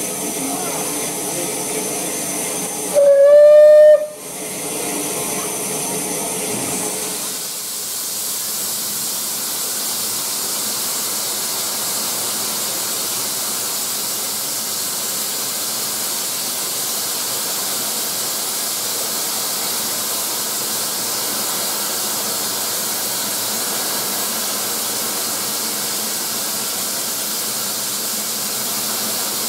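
Steam whistle of Southern Railway 'Battle of Britain' class Pacific No. 34072 '257 Squadron', one short blast about three seconds in, then a steady steam hiss from the locomotive that runs on from about seven seconds.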